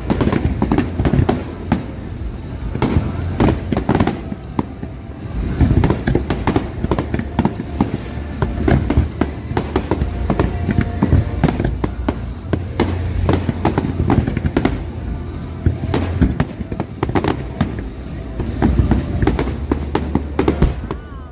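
Large aerial fireworks display: a dense, continuous run of shell bursts and crackling, many sharp bangs a second over a deep rumble of booms.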